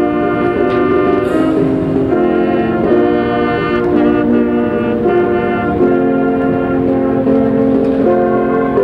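Brass ensemble playing slow, held chords that change about once a second.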